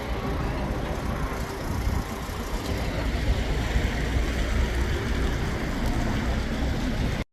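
Steady low rumble with a hiss over it, which stops abruptly at the very end.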